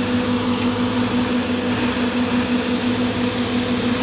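Caterpillar 320C hydraulic excavator's diesel engine running steadily while it swings its boom and bucket, a constant drone with a steady hum over a low rumble.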